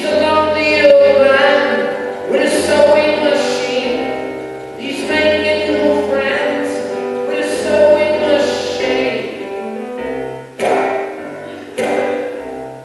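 Live song: long held sung notes over acoustic guitar, with the guitar strummed in sharp strokes near the end.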